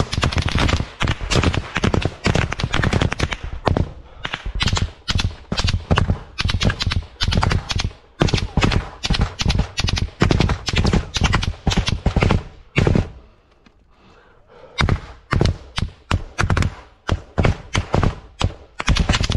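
Rifle fire in a trench battle: rapid shots in runs of several a second, with a break of about a second and a half a little past the middle before the firing starts again.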